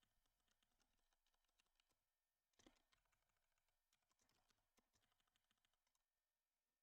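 Very faint typing on a computer keyboard: scattered key clicks, with a slightly louder clatter about two and a half seconds in.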